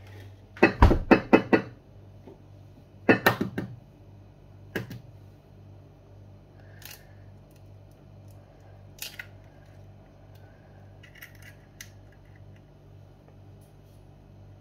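Hard taps and clinks of kitchen crockery and utensils being handled at a counter: a quick run of about six sharp strikes, a second run of about four, then a single knock and a few lighter clicks, over a steady low hum.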